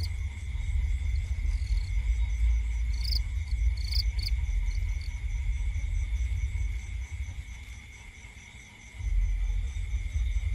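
Crickets trilling steadily in a garden at night, with a few short clicks and a low rumble on the microphone that fades briefly about two-thirds of the way through.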